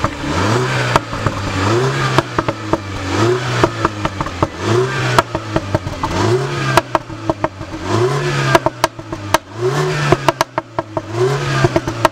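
Mini Clubman Cooper S's 2.0-litre turbocharged four-cylinder being revved while stationary, with short throttle blips about every one and a half seconds, about eight times. Sharp pops and cracks from the exhaust come between the blips.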